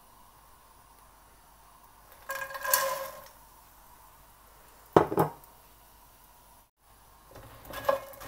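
Fox nuts (phool makhana) tipped into a non-stick pan with a little melted ghee, rattling in for about a second, followed a couple of seconds later by a single sharp knock. Near the end a wooden spatula stirs them, with light clattering as the puffed seeds tumble over the pan.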